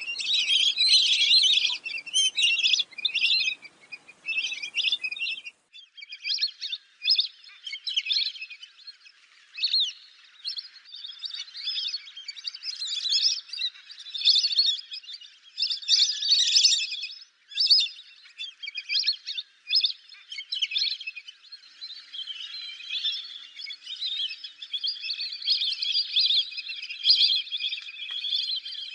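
Lesser whistling ducks calling: many short, high-pitched whistles in quick, overlapping bursts that run together into a denser chorus near the end. About five seconds in, the low background hiss of the recording drops away.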